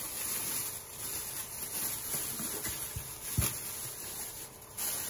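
Thin plastic bag crinkling and rustling as it is pulled off a bowl of risen dough, with a brief knock about three and a half seconds in.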